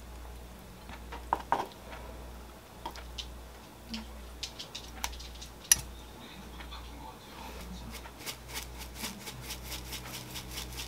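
Metal kitchen tongs clicking and tapping against a ceramic bowl and a wooden board in scattered single knocks as beef slices are laid on the dish. From about eight seconds in, a quick even run of light ticks, several a second: a jar of dried parsley being shaken over the food.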